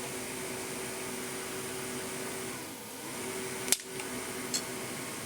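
Steady fan-like hum with a few low steady tones. One sharp click comes about three and a half seconds in, and a fainter click about a second later.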